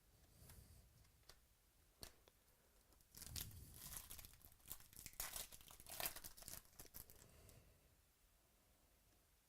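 A trading card pack's wrapper being torn open and crinkled, a dense run of crackling rips lasting about four seconds, starting about three seconds in, with a few light clicks before it.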